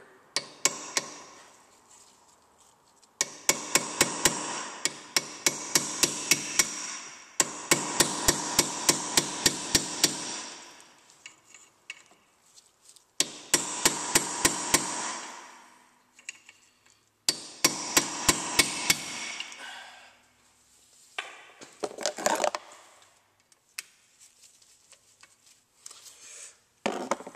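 Hammer striking a chisel set against a seized Phillips rotor retaining screw to shock it loose, in four runs of quick blows, about three a second, with a metallic ring under each run. Scattered quieter knocks follow near the end.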